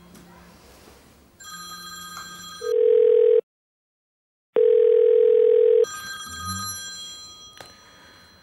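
Telephone ringback tone heard through the line: a loud, steady mid-pitched tone, thin as through a handset, sounding twice for about a second each with a short silence between. Fainter steady high whines surround it, and there is a click near the end.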